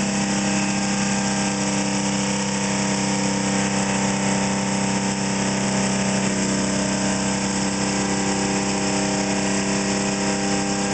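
Bench-top generator rig running, one of its coils driven as a motor through a commutator: a steady electrical machine hum with a strong low tone and a hiss over it.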